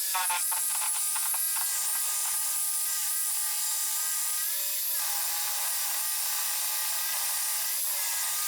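Power saw cutting through the steel exhaust pipe: a steady whine over a gritty hiss, its pitch dipping briefly twice as the blade loads up.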